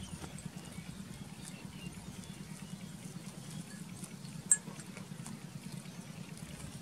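Goats grazing close by, tearing and cropping short grass in a run of small ticks and crunches over a steady low hum. One sharp click stands out about four and a half seconds in.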